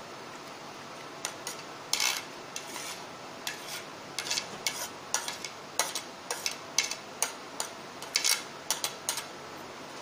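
A metal spoon scraping and tapping against a plate, pushing chopped ingredients off it into a plastic mixing bowl: a run of irregular sharp clicks and short scrapes beginning about a second in.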